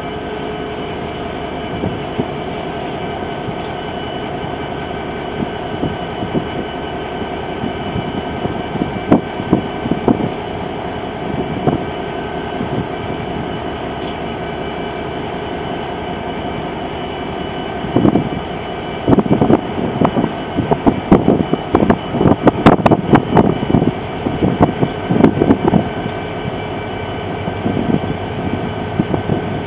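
CSX diesel freight locomotives and their cars rolling slowly past on curved track, with steady wheel squeal. Past the middle a long run of loud clacks and bangs as the car wheels cross switches and rail joints.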